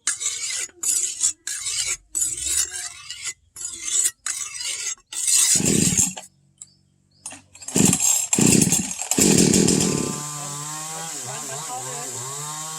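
A file rasping along a steel knife blade in repeated strokes for about five seconds. Then come a few heavier scraping bursts, and a power tool settles into a steady running whine for the last few seconds.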